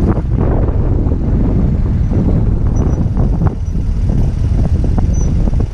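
BMW R1200GS boxer-twin motorcycle riding, its engine rumble mixed with wind buffeting the microphone.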